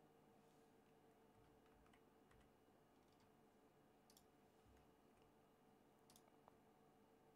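Near silence: faint room tone with a few soft computer mouse clicks, the two clearest about four and six seconds in.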